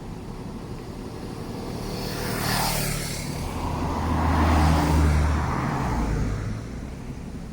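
A motor vehicle passing close by: its engine hum and tyre noise swell, are loudest about four to five seconds in, then fade away.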